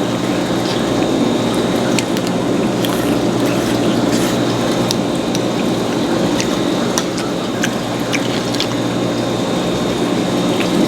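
Wet, squishy chewing of stir-fried clams, with scattered light clicks, over a steady background hum.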